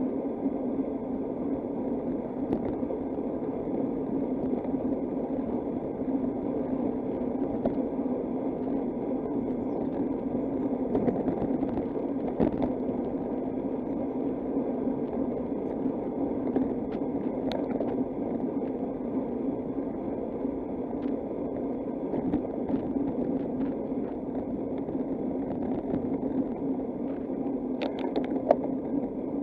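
Steady wind and rolling road noise on the microphone of a camera carried on a moving bicycle, with a few brief clicks and rattles about halfway through and near the end.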